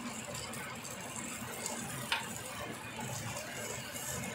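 Chicken pieces sizzling gently on a nonstick grill pan while a metal spoon scrapes and dabs sauce over them, with one sharp clink of the spoon about two seconds in.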